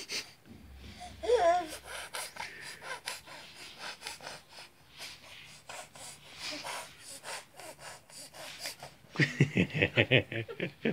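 A baby snorting and sniffing in short, quick breaths through the nose, the little-animal noise she makes with her face. About a second in there is a brief wavering voice sound, and near the end the snorts come faster and louder.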